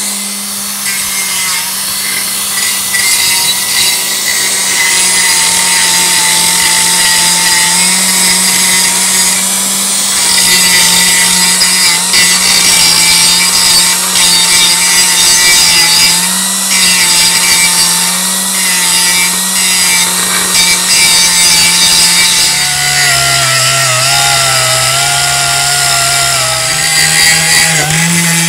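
Chief 4-1/2-inch pneumatic (air-powered) angle grinder running continuously, its grinding disc rasping against metal with a steady whine over a dense hiss. Its pitch drops a little about three-quarters of the way through.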